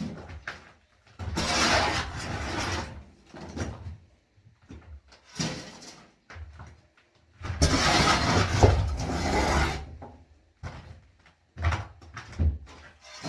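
Demolition work: irregular knocks and bangs, with two longer stretches of rushing, scraping noise, one starting about a second in and one about seven and a half seconds in.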